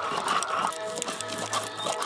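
Music with held notes, over the rough scraping and knocking of a stone roller grinding a wet spice paste on a stone slab (sil-nora).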